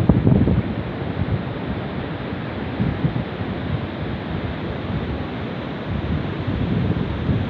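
Steady rush of flowing water, with wind buffeting the microphone in low gusts near the start and again near the end.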